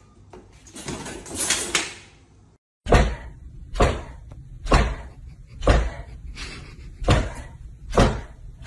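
A rush of noise swells for about two seconds, then, after a brief cut, sharp bangs like a door or cupboard door being slammed repeat about once a second, about seven times.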